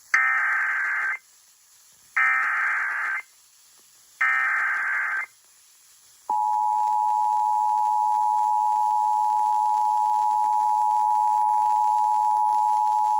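Emergency Alert System signal announcing a severe thunderstorm warning: three short bursts of SAME header data, each about a second long, then a steady two-tone attention signal that begins about six seconds in.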